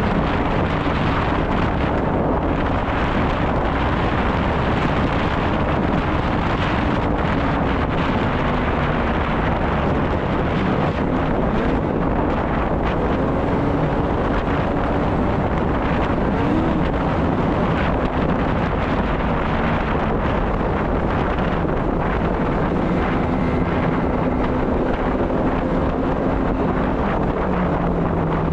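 Snowmobile engine running steadily, its pitch shifting up and down a little, under heavy wind noise on the microphone.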